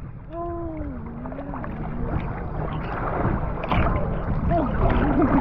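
Open-sea water sloshing and lapping around a camera held at the surface, with wind, and two short wavering pitched sounds, one just after the start and one near the end.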